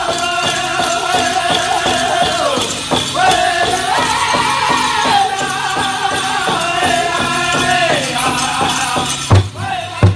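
Powwow drum group singing a chicken dance song in high, held voices over a fast, steady drumbeat, with the jingle of dancers' bells. About nine seconds in the singing stops and single, heavier drumbeats follow about every 0.7 s.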